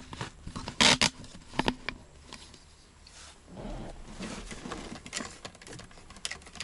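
Hands handling a cable and the plastic parts of a truck's lower dashboard: a few sharp clicks, the loudest a quick pair about a second in, and a stretch of rustling in the middle.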